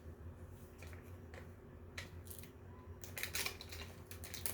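Small plastic toys and their packaging being handled: scattered light clicks and rustles, busier in the last second and a half, over a low steady hum.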